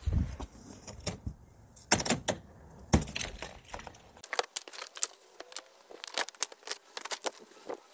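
Cardboard box and packing material being opened and pulled off: irregular knocks and thumps, then, after a change about halfway, a quicker run of crisp rattling clicks.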